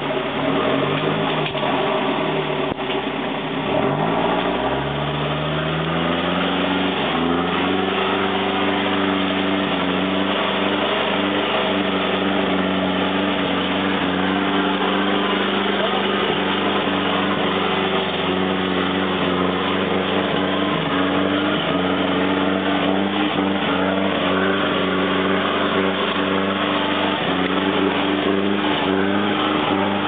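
Pickup 4WD's engine driving on a muddy dirt track: its note climbs over the first several seconds, then holds steady, over a constant rushing noise.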